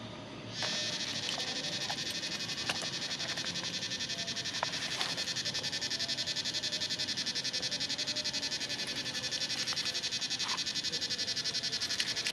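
A calling insect gives a loud, high buzz that pulses rapidly and evenly; it starts abruptly about half a second in. A few sharp clicks come from a small camping lantern and its battery being handled.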